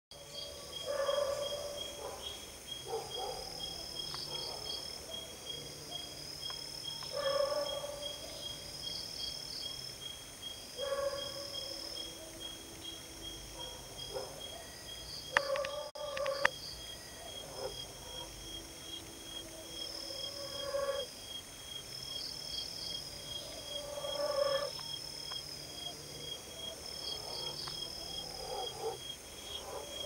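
Night insect chorus: a cricket's steady pulsing trill, with higher chirps and shorter lower calls that come back every few seconds. Two sharp clicks about halfway through.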